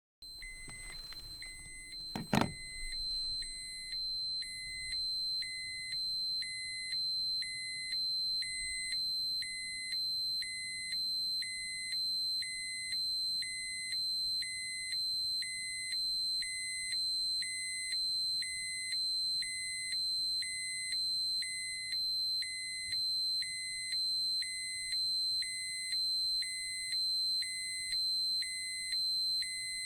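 Electronic alarm sounding: a steady high-pitched tone with a second tone beeping on and off about once a second. A sharp thump about two seconds in.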